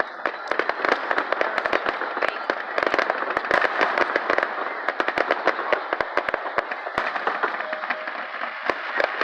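Fireworks display: a dense run of sharp bangs, several a second, over continuous crackling.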